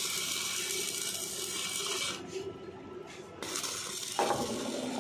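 Stick (arc) welding on a steel frame: the arc crackling and hissing for about two seconds, stopping, then striking again briefly. Near the end a short, lower-pitched noise takes over.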